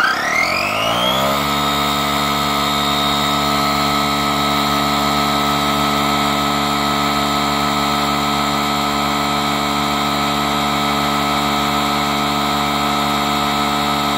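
DeWalt 20V cordless tire inflator's compressor coming up to speed, its pitch rising over the first second or so, then running loud and steady as it pumps air into a car tire.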